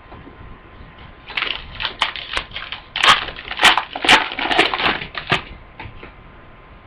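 Trading cards and their pack wrapper being handled: a run of crinkles and sharp clicks lasting about four seconds, starting a little over a second in.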